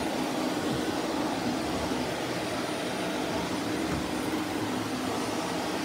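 Shark Navigator Lift-Away Professional upright vacuum cleaner running steadily, a constant rush of motor and airflow.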